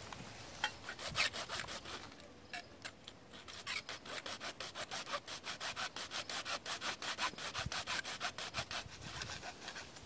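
Small hand saw sawing in quick back-and-forth strokes. A few strokes come in the first two seconds, then a steady run of rapid strokes from about three and a half seconds in until near the end.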